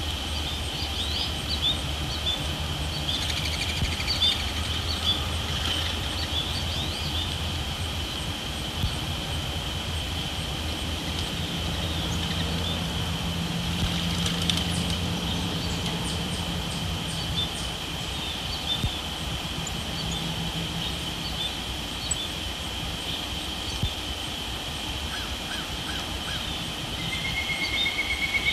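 Pond-side evening ambience: a steady high insect drone, scattered short bird chirps, and a low hum underneath. Near the end a short trill.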